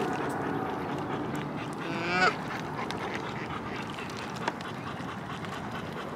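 A flock of Canada geese and mallards on the water, with one loud call about two seconds in that bends in pitch, over a low steady background. A single sharp click comes a little after four seconds.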